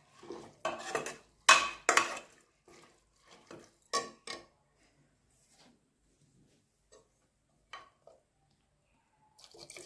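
Steel ladle stirring and scraping vegetables and rice inside an aluminium pressure cooker: a run of clinks and scrapes against the metal pot for the first four or five seconds, then a lone tap about eight seconds in.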